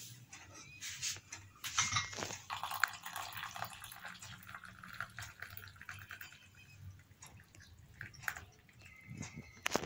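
Milky pink tea (Kashmiri chai) poured from a glass teapot into a glass cup, a steady stream splashing as the cup fills, with a few light clicks of glassware around it.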